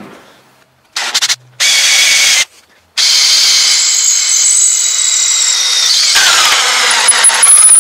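Electric drill boring a hole into Rimu wood. It is started in two short bursts, then runs steadily from about three seconds in, its whine dipping in pitch near the end as the bit bites deeper into the wood.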